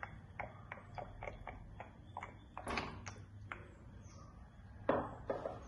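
Coconut oil being poured from a bottle into a pan, heard as faint ticks and soft knocks of the bottle and pan being handled, with a louder knock about five seconds in.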